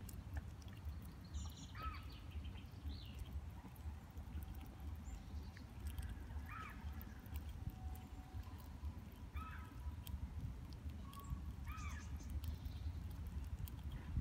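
A bird giving five short arching calls a few seconds apart over a steady low rumble.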